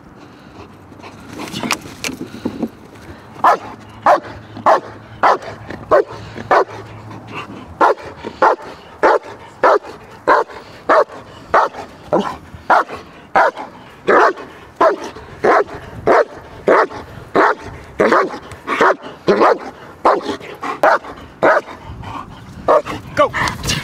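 German Shepherd protection dog barking repeatedly at a decoy in a bite suit, a steady run of sharp barks at about two a second that begins a second or two in.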